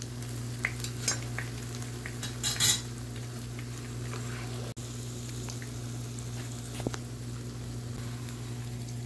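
Beaten egg shallow-frying in hot oil in a pan, sizzling steadily, with a few short scrapes and taps of a spatula against the pan, the loudest cluster about two and a half seconds in. A steady low hum runs underneath.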